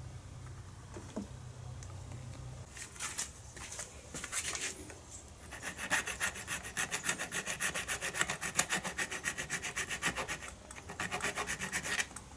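A hand file scraping back and forth on the soft aluminum dropout of a bicycle front fork, widening the slot to take a 10 mm hub-motor axle. A few short runs of strokes come first, then a fast, even run of strokes from about halfway through, with a brief break near the end.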